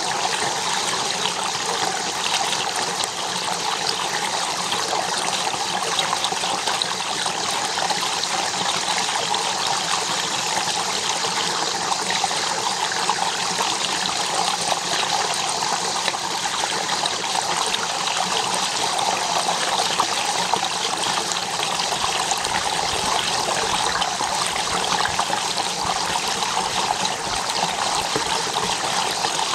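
Shallow stream water trickling and flowing steadily over a sandy bed.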